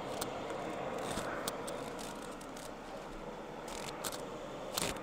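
Light clicks and rustling from handling paper towel and kitchen items at the stove, over a steady background hiss.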